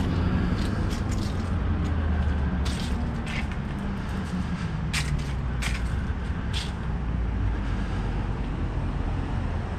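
Low, steady rumble of a road vehicle's engine, its note sinking slowly over the first several seconds, with a few short sharp clicks in between.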